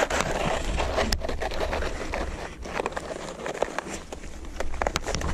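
Tubbs Flex snowshoes crunching and scraping on packed snow step after step, with many short clicks and a close rustle of clothing near the microphone.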